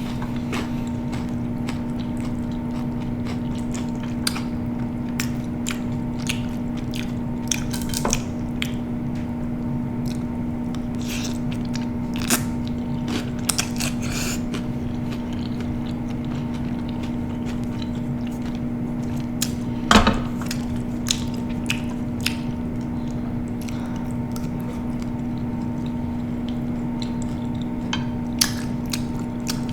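A person chewing and biting food, with scattered short crunches and mouth clicks over a steady low hum. One louder crunch comes about twenty seconds in.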